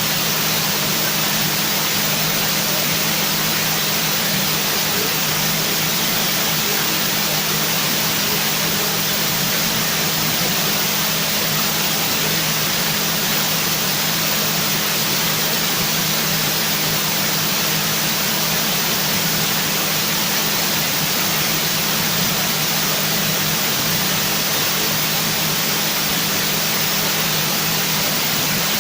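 Steady, even hiss of noise with a faint low hum beneath it, unchanging throughout.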